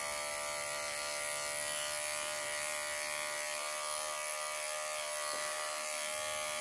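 Cordless dog grooming clipper, fitted with a 40 blade under a 1/8-inch comb, buzzing steadily as it is run over a dog's belly for a sanitary trim.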